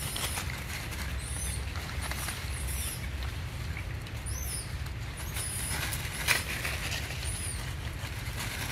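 Macaques scuffling and running over dry leaf litter, the leaves rustling. About eight short, very high chirping squeaks are scattered through, and there is one sharp knock about six seconds in.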